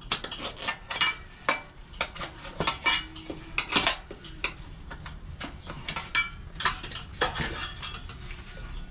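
Steel tire irons clinking and scraping against a dirt bike's wheel rim and against each other while the tire bead is levered over the rim: an irregular string of sharp metallic clicks and clanks.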